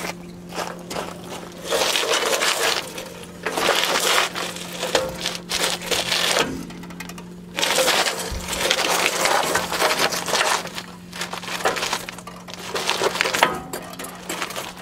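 Repeated bursts of scraping, crackling work noise from jobs on a van's front suspension, each lasting a few seconds with short pauses between. A steady low hum runs underneath.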